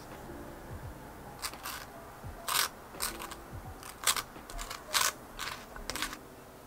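A wooden spreader scraping jam across crisp toast: a series of short, dry, rasping scrapes, about ten strokes, starting about a second and a half in.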